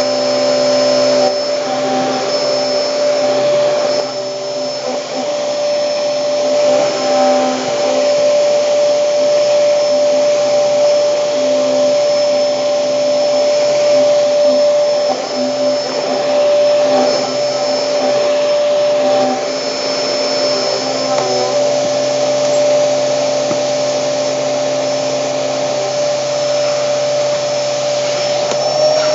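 Hoover Hurricane vacuum cleaner running steadily with a constant high whine over its motor noise, while it cleans carpet.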